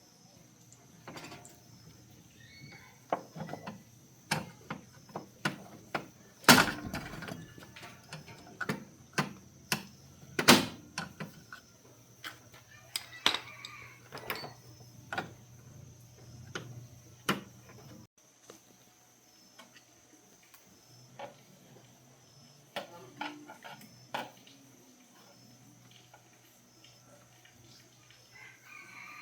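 Scattered knocks and clinks of hard objects being handled, the loudest about six and a half and ten and a half seconds in, growing sparser and fainter after about eighteen seconds.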